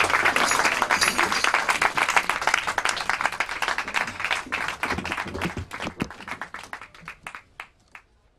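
Audience applauding, the dense clapping thinning out and fading away to nothing near the end.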